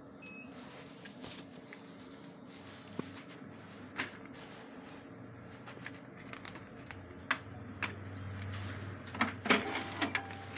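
Hitachi cash-deposit ATM: a short beep as the account type is chosen, then the cash slot's motor hums, building over the second half, and a rapid run of clacks near the end as the shutter opens for notes.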